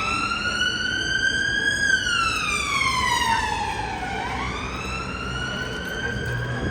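Emergency vehicle siren wailing, its pitch sliding slowly up over the first two seconds, down to a low about four seconds in, then up again near the end.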